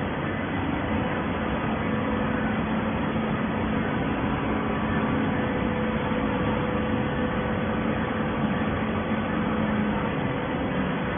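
Hydraulic waste paper baler running: a steady mechanical noise with a low hum that drops away shortly before the end.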